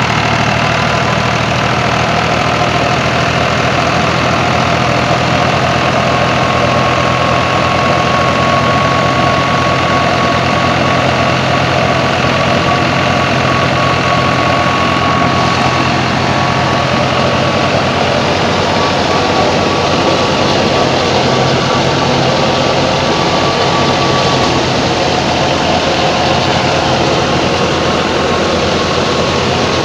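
Old Fiat 480 tractor's diesel engine running steadily, driving a wheat thresher, with the thresher's dense whirring noise over it. A thin steady high whine joins a few seconds in and fades out about two-thirds of the way through.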